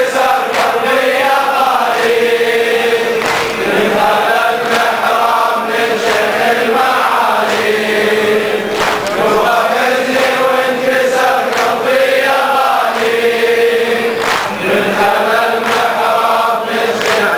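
A crowd of men chanting a mourning lament together, in repeating sung phrases with falling lines.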